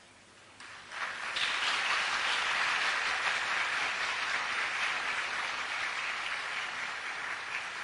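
Audience applauding. It swells up about a second in, holds steady, then eases off a little toward the end.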